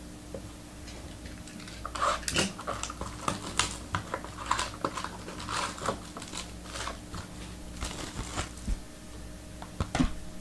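Hands handling trading-card packs and cardboard boxes on a table: a quick run of light clicks, taps and short rustles, over a steady low hum.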